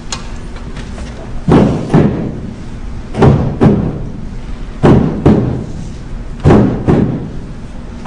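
Music with a low held tone under pairs of heavy, ringing drum strokes, one pair about every second and a half.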